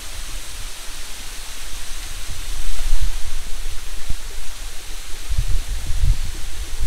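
Steady hiss of a thin waterfall spilling down a rock face and splashing into a pool. Low rumbles on the microphone swell about three seconds in and again near the end.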